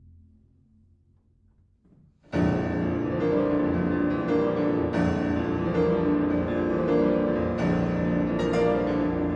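Hushed room for about two seconds, then a solo piano comes in suddenly and loudly, playing a classical piece with dense chords and repeated struck notes.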